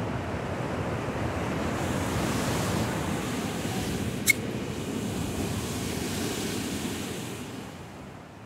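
Waves on a choppy sea breaking on the shore below, a steady wash of surf. A single sharp click about four seconds in, and the sound fades near the end.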